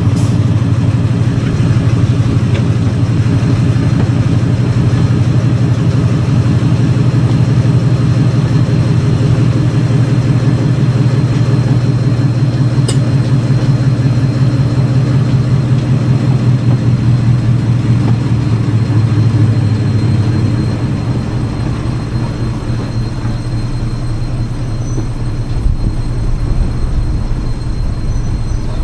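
Diesel locomotive engine running steadily, a deep drone that eases off about twenty seconds in.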